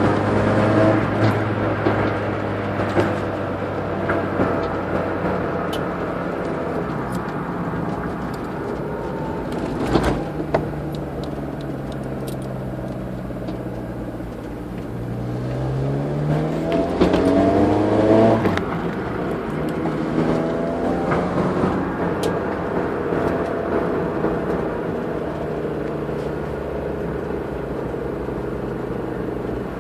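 Peugeot 306 1.4i's four-cylinder petrol engine idling, with a sharp click about a third of the way in. It is revved up over a few seconds about halfway through, then released and drops back to idle, with a smaller blip after. The owner is chasing a strange noise that appears whenever the accelerator is released, in gear or not.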